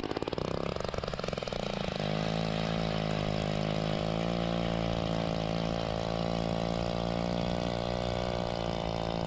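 Power ice auger drilling through lake ice. Its motor note sags as the blades bite in, then holds a steady pitch under load from about two seconds in.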